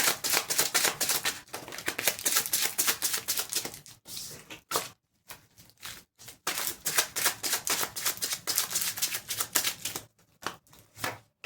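A deck of tarot cards being shuffled by hand: two long runs of rapid card clicks, the first in the opening four seconds and the second from about six and a half to ten seconds in, with a short pause between.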